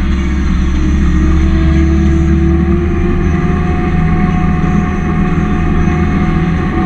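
John Deere 324G skid steer's diesel engine running steadily.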